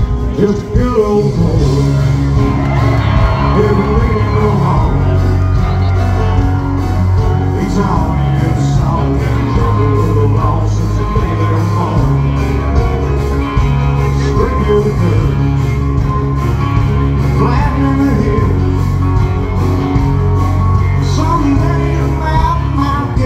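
Live country music: a male lead singer singing into a microphone over a full band, with a strong bass line and guitar, loud through the PA.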